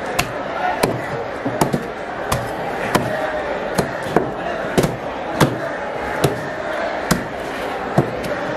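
A heavy cleaver chopping through a small red grouper on a wooden chopping block: sharp chops at an uneven pace, about three every two seconds.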